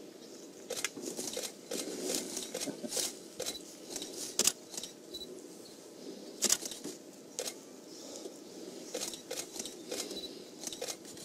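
Irregular sharp clicks and light rattling, with two louder clicks around the middle.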